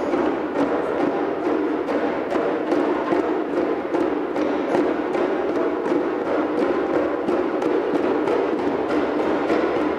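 Several djembes played by hand together in a steady, dense rhythm of many quick strokes, with a learner practising the djembe's tone stroke.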